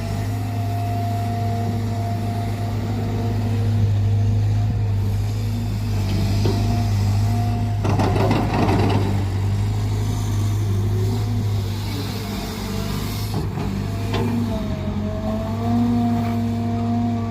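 Caterpillar 320GC excavator's diesel engine running steadily while it digs, its note bending briefly near the end. A burst of rattling and clattering comes about eight seconds in.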